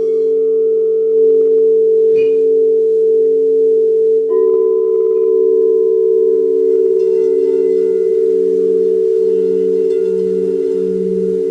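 Several singing bowls ringing together in long, sustained pure tones, with another bowl joining about four seconds in. In the second half the lowest tone wavers slowly and regularly.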